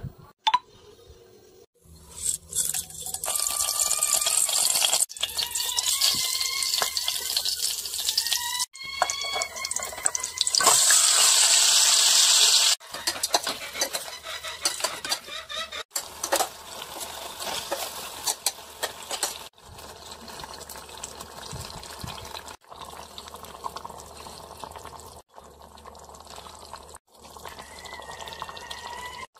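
Tap water running in bursts into a steel pot, with a rising ring as it fills, loudest just before the middle. After that, quieter wet clicking and rustling of hands mixing chicken pieces in a thick marinade in the pot.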